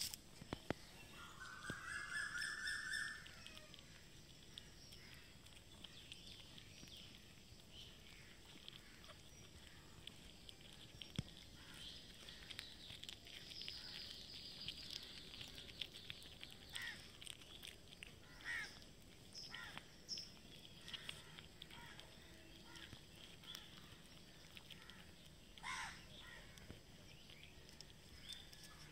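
A cat meows once, a long drawn-out call about a second in. Faint clicks of street cats chewing rice and fish follow, with one short call near the end.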